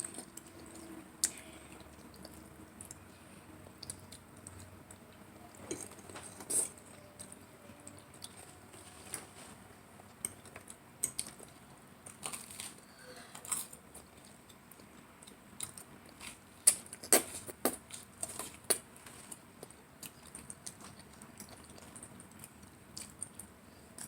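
Close-up chewing and mouth sounds from eating spaghetti, with irregular wet smacks and slurps and the odd clink of cutlery.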